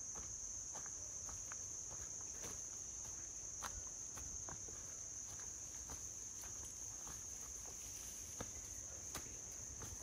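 A steady, high-pitched insect chorus, with irregular footsteps and light crackles on a leaf-littered dirt path.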